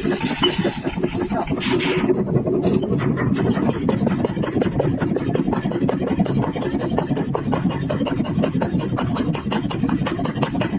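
Forging shop machinery running: a loud, steady, rapid rattling and grinding, with a hiss over it in the first two seconds.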